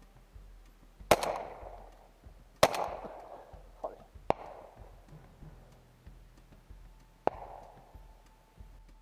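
Two shotgun shots about a second and a half apart, each trailing off in an echoing tail, followed by a few fainter, sharper reports.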